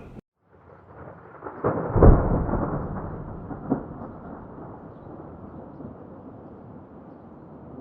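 A thunderclap with its loudest crack about two seconds in, followed by a long rolling rumble that slowly fades. There is a smaller crack partway through.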